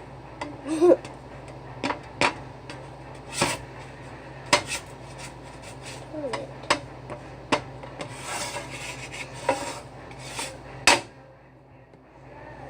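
Kitchen utensil clattering against a pan while cooking pancakes: a dozen or so sharp, irregular clicks and knocks, with a short scraping stretch about two-thirds of the way through, over a steady low hum.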